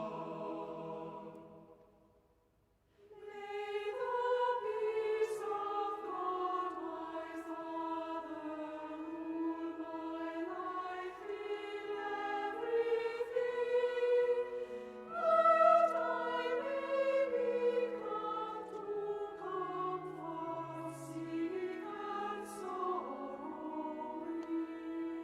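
Choir singing slow, sustained sacred music. One passage fades away in the first two seconds, and after a brief silence another begins about three seconds in and carries on.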